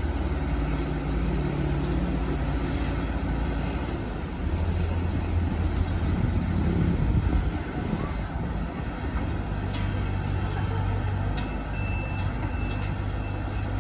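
Kubota rice combine harvester running steadily, its engine drone swelling for a few seconds midway. Near the end a high beep starts repeating about twice a second: the machine's reversing alarm.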